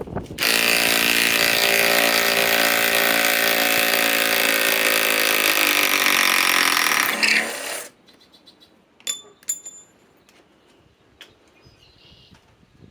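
DeWalt Atomic DCF921 cordless impact wrench hammering a 6-inch lag screw in: about seven seconds of continuous impacting that slows slightly toward the end as the lag draws tight, then stops. A few light clicks follow.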